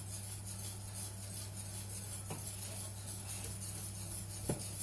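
Whisk stirring cake batter in a glass dish: soft scraping, with two light knocks against the glass about two and a half and four and a half seconds in, over a steady low hum.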